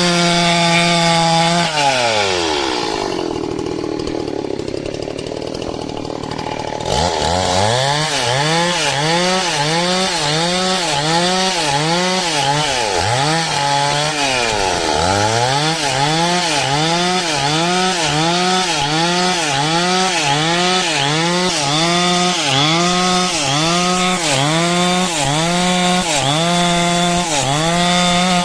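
Stihl chainsaw sawing a coconut-palm log lengthwise into a beam. The engine drops back from full revs about 2 seconds in and runs lower for a few seconds. About 7 seconds in it revs up again, and from then on its pitch dips and recovers about once a second as the chain bogs in the cut.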